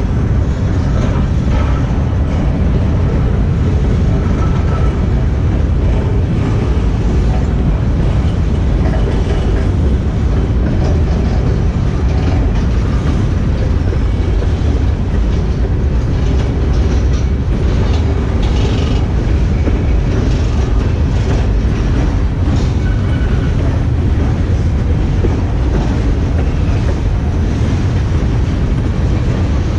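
Freight train cars rolling past close by: a steady, loud rumble of steel wheels on rail, with scattered clicks as the wheels cross rail joints.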